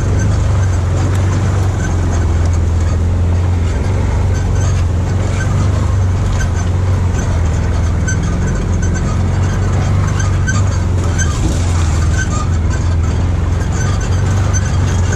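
Side-by-side UTV's engine running at a steady low drone while driving along a rough trail, with small knocks and rattles from the bouncing machine.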